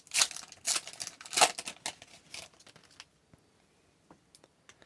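Crinkling and rustling of a foil trading-card pack wrapper being handled and torn open, in quick noisy bursts for about two and a half seconds, then a few faint ticks.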